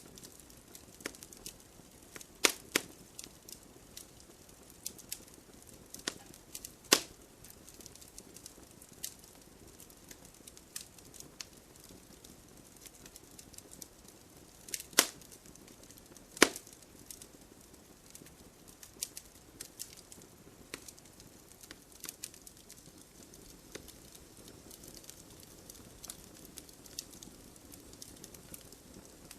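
Wood bonfire crackling: scattered small clicks and pops over a faint hiss, with a few sharper pops, the loudest about two and a half, seven, fifteen and sixteen and a half seconds in.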